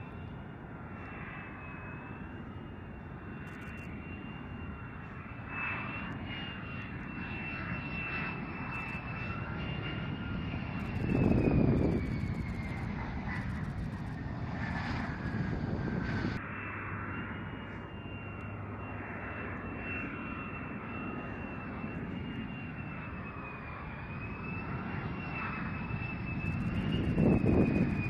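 F-35A Lightning II jets, each with a single Pratt & Whitney F135 turbofan, coming in to land: a high steady engine whine over a rushing roar. The roar swells loudly twice, about eleven seconds in and near the end, as a jet passes close, and the whine drops in pitch for a few seconds before the sound changes abruptly to the next jet.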